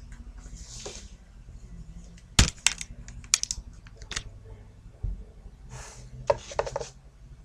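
Sharpening stones and their packaging being handled on a tabletop: a string of sharp clicks and knocks, the loudest about two and a half seconds in and a duller thump about five seconds in, with short rustles between.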